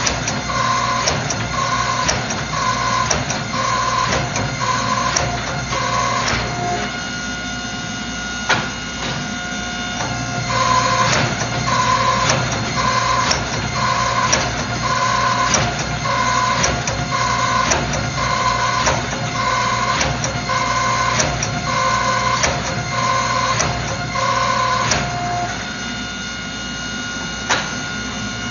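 A machine hum with a high, repeating beep about every three-quarters of a second, over a background of noise and scattered clicks. Hum and beeps stop together twice for a few seconds, then start again.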